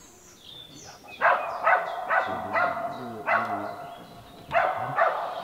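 A hunting hound baying while working wild boar: a run of loud barks about two a second starting about a second in, a short pause, then two more barks near the end.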